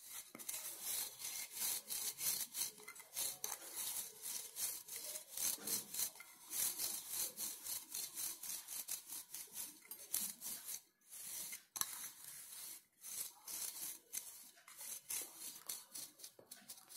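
Fingers rubbing cocoa powder over the buttered inside of a steel cake tin: quick repeated scraping strokes, with two brief pauses a little past the middle.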